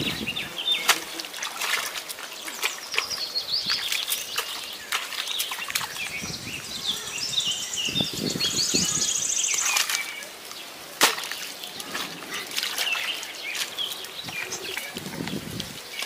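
Bare feet squelching and splashing in wet mud and water, packing mud into a leaking breach in a fishpond dike to plug it. Birds chirp throughout, and a high buzz runs for a second or so past the middle.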